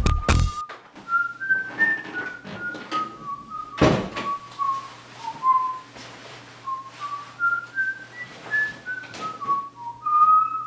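A person whistling a simple tune, single clear notes stepping up and down in pitch, with one thump about four seconds in.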